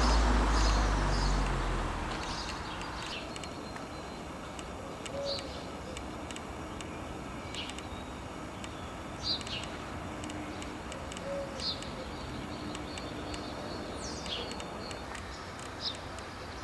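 Garden birdsong: scattered short, high chirps from small birds, with two short, low coos from doves about five and eleven seconds in. A louder rush of noise fades away over the first two seconds.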